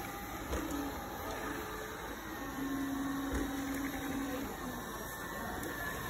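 Roborock robot vacuum running, a steady whirring hum of its motors and suction fan as it sweeps along an edge with its spinning side brush. A low steady tone joins for about two seconds midway.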